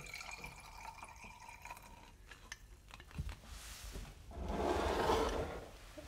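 Liquid dripping and trickling into a ceramic bowl, with a louder splashing pour lasting about a second and a half past the middle.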